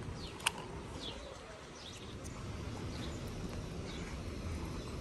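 Small birds chirping: repeated short, high, falling notes over a low, steady outdoor rumble. A single sharp click comes about half a second in.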